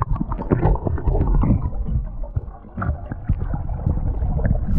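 Surf water heard underwater through a submerged action camera: muffled low churning with irregular dull knocks and gurgles, and no treble.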